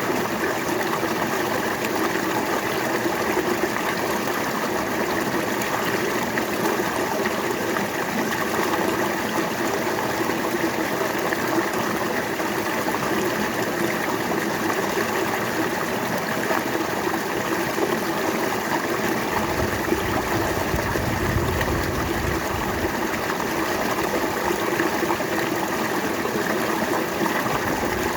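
River water flowing steadily, an even rushing sound, with a deeper low rumble joining for a few seconds past the middle.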